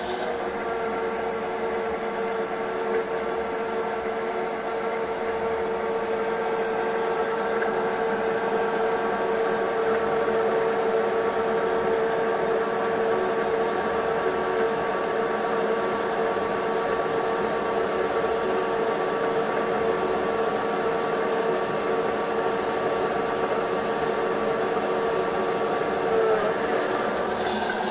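Fortg BV20L bench lathe running a facing cut across a flange under automatic power feed from an electronic lead screw, the final pass. A steady machine whine with cutting noise that stops near the end as the pass completes.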